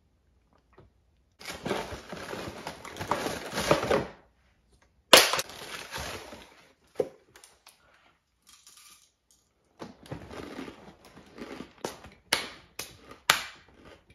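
Crinkling and crunching from handling a box of Honey Nut Cheerios and eating the cereal by hand, with a few sharp clicks and cracks.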